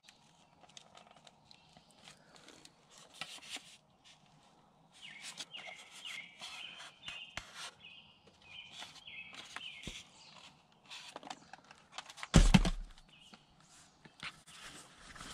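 Rustling and light clicks of padded riding gear being handled at an open car, with a bird singing in the middle stretch and one loud thump about twelve seconds in.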